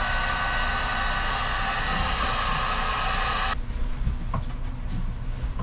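Heat gun blowing steadily with a fan whine, shrinking heat-shrink tubing over a wiring connection, then switched off abruptly about three and a half seconds in.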